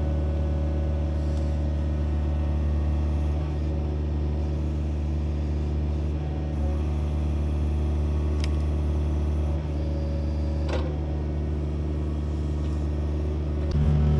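Excavator's diesel engine running steadily as the machine works, with two faint sharp clicks in the middle. Near the end the engine note rises and gets louder as it comes under more load.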